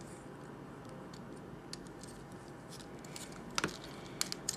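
Faint clicks and ticks of a plastic Transformers Deluxe Ratchet action figure's parts being handled as its arm is adjusted, with a clearer click about three and a half seconds in and a few quick ones just before the end.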